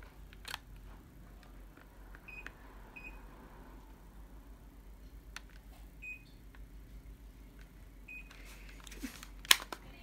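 Short single beeps from a Daikin wall-mounted split air conditioner's indoor unit, four of them spread out, each answering a command from its infrared remote, with light clicks in between. A sharp click about nine and a half seconds in is the loudest sound.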